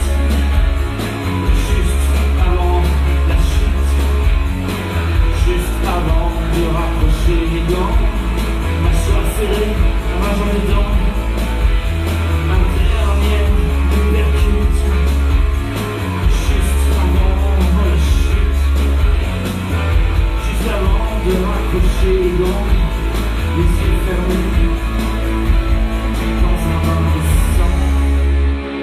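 Live rock music: electric guitar over a steady, heavy bass-and-drum beat, with some singing. The song stops abruptly right at the end.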